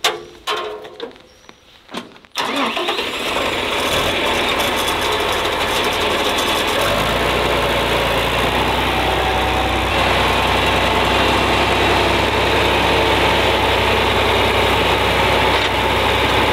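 John Deere farm tractor's engine starting about two seconds in and then running steadily, with a deeper steady drone joining from about seven seconds in as the tractor lifts a round hay bale on its front loader and drives off.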